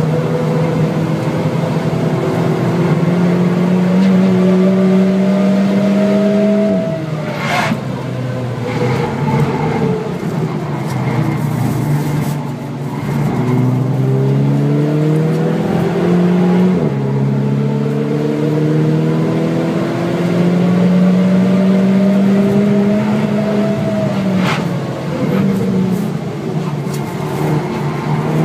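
VW Scirocco 2.0 TSI Stage 2's turbocharged four-cylinder engine heard from inside the cabin under hard track driving: revs climb and drop sharply at an upshift about seven seconds in, fall away under braking with stepped downshifts for a slow corner, then climb again to another upshift near the end.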